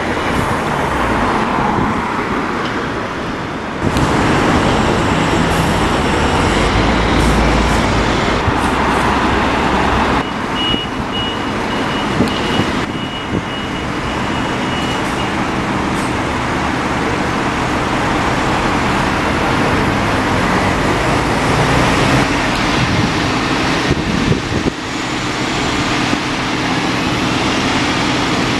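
City buses running and moving off at bus stops and junctions, with engine hum, tyre noise and general road traffic, changing abruptly several times. A steady high-pitched tone sounds for a few seconds in the middle, and a rising whine comes near the end.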